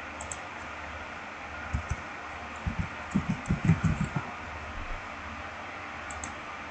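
Computer keyboard typing: a quick run of about a dozen soft key strokes over a steady hiss, followed near the end by a quick pair of faint mouse clicks.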